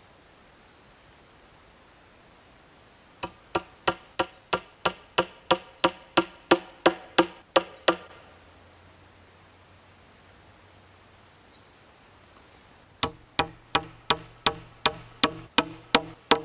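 Repeated strikes of a hand tool into wood, about three blows a second, each with a short ringing knock. There are two runs: a string of about fifteen blows starting around three seconds in, then a pause of several seconds, then another run near the end.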